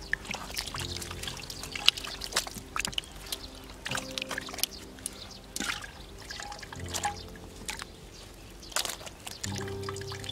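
Background music with sustained low tones over frequent short wet splashes and drips, as fish flop and slide on the wet mud of a hole trap.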